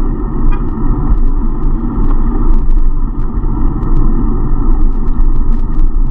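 Steady wind noise and road rumble on a riding bicycle's action-camera microphone, mixed with car traffic, with a scatter of faint ticks and rattles from the bike.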